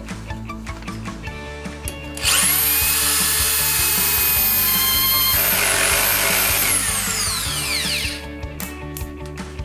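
Zubr DSh-M3-500-2 corded drill-driver motor spinning up about two seconds in, running steadily with a high whine for about five seconds, then winding down. Background music throughout.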